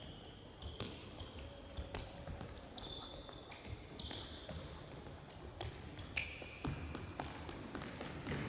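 Athletic shoes squeaking briefly and tapping on a sports-hall court floor during fast footwork, with a short squeak about every second amid steady light footfalls.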